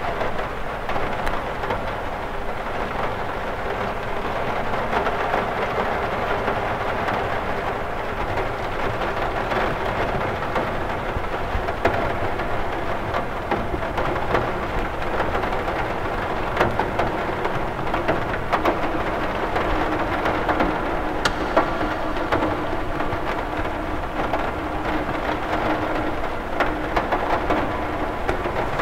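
Steady rain pattering on a cathedral window, an even hiss of rain with many scattered sharp drop ticks on the glass.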